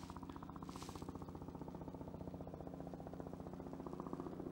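A motor running steadily, faint, with a rapid even pulse like an engine at idle.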